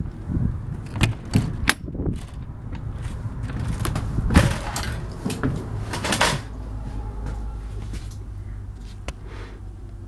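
Travel trailer entry door being worked open: a few sharp latch clicks and knocks, then thumps and rustling as someone steps up into the trailer. A steady low hum follows.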